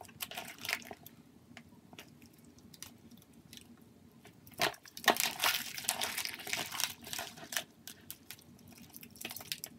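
Hands squishing and kneading a large mass of mixed slime with foam beads in it: wet clicks and pops, with a denser crackling stretch about halfway through.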